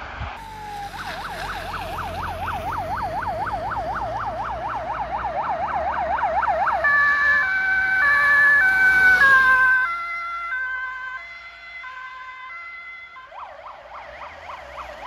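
Fire engine sirens on an emergency run. A fast yelp sweeps up and down about five times a second. About seven seconds in it switches to an alternating two-tone horn pattern, which is loudest around nine seconds and then fades. Near the end a yelping siren comes back in, with low engine rumble beneath.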